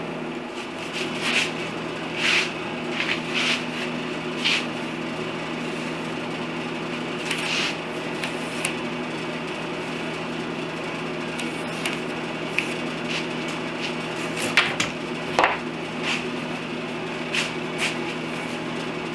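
Scattered light wooden knocks, taps and scrapes as a thin wooden strip is bent, positioned and clamped against a pine-board panel on a workbench, over a steady low hum.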